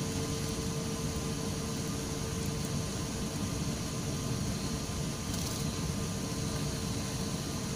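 Steady airliner cabin noise while taxiing: the engines and air conditioning make an even hiss and hum, with one faint steady tone over it.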